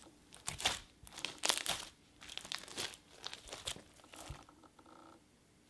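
Cream cheese slime with foam beads being stretched and squeezed by hand, giving irregular clicks and crackles, described as "so clicky". The clicking thins out near the end.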